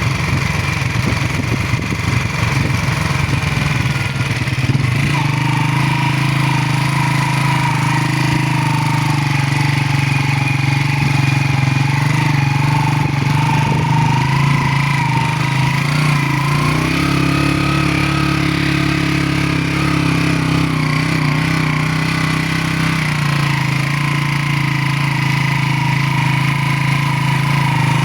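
Motorcycle engine running steadily under way, its note shifting about five seconds in and again a little after halfway.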